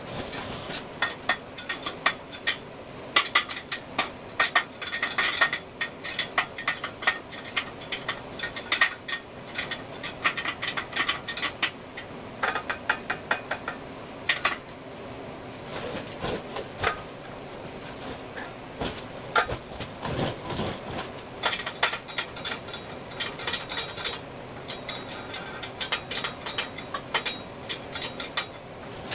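Runs of quick metallic clicks and clanks from a wrench turning the threaded stud levelling adjusters under a steel welding-table top.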